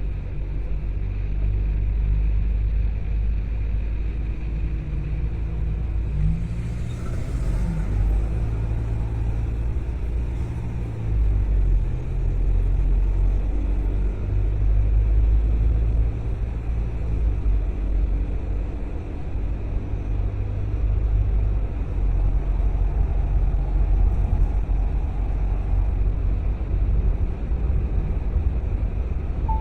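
Car driving along: a steady low engine and road rumble, with the engine note briefly rising about seven seconds in.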